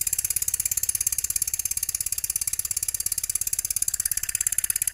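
H.E. Boucher S62 two-cylinder marine steam engine running fast: a rapid, even stream of exhaust beats with a hiss from the exhaust stack. The hiss brightens slightly about four seconds in.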